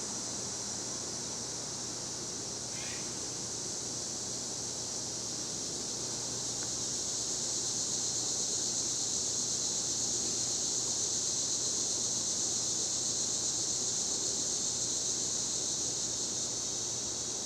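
A 40-inch ceiling fan with cane blades running on low speed: a steady whoosh of moving air over a faint steady motor hum, growing a little louder about a third of the way in and then holding.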